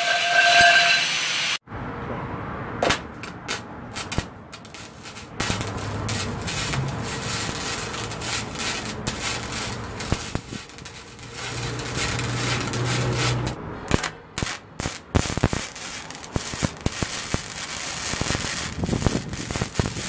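Arc welding a steel smoke-stack pipe into the smoker's tank: a steady crackle and sizzle of the arc that stops and starts again a few times. It opens with a brief high steady whine that cuts off about a second and a half in.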